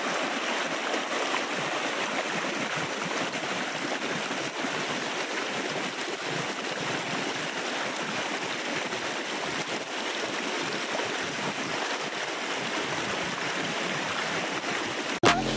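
Shallow river rapids rushing over rocks, a steady rush of water that cuts off suddenly near the end.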